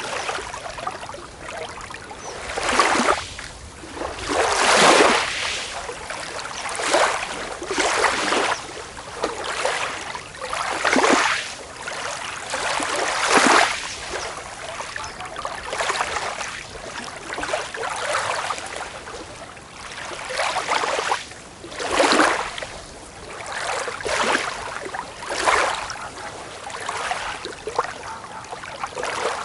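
Small waves washing onto a beach, a hissing wash that swells and fades every second or two, some breaks louder than others.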